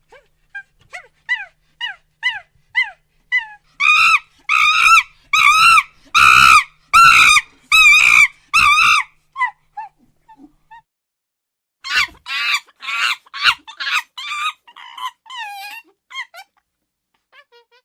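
Monkey calling: a run of short chirps falling in pitch builds into loud, rapid, shrill screeches. After a pause a second bout of screeches follows.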